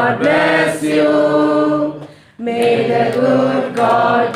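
A group of people singing a birthday blessing song together without instruments, holding long notes, with a short break about two seconds in.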